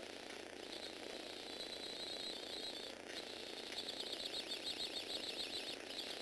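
Small electric motor whining through the plastic gear train of a motorized Lego Technic 8265 front loader. The high whine drops out briefly about halfway, then returns with a pitch that wavers rapidly up and down.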